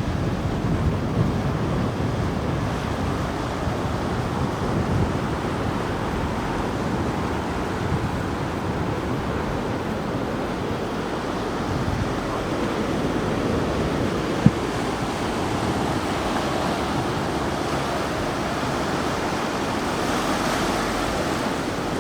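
Ocean surf washing steadily onto a sandy beach, with wind rumbling on the microphone through its windscreen. A single sharp click about two-thirds of the way through.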